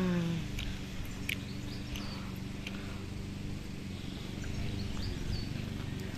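Steady low hum, like a distant motor, with a few light taps early on and small high bird chirps near the end.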